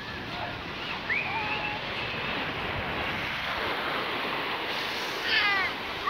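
Small sea waves washing up over a sandy shore, a steady hiss of surf and foam. Brief high-pitched calls sound over it about a second in and again near the end.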